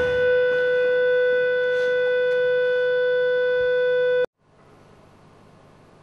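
A steady, unwavering musical tone with harmonics, held for about four seconds and then cut off suddenly, leaving only faint hiss.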